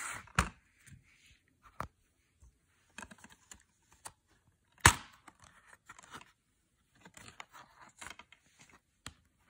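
Blue plastic Blu-ray case handled and opened by hand: scattered light clicks and rustles, with one sharp, loud snap about five seconds in as the case's clasp lets go.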